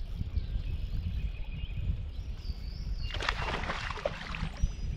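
Low, uneven rumble of wind and water noise on the microphone of a small boat drifting on a river. A bird calls faintly about halfway through, and a short burst of rustling and clicks comes about three seconds in.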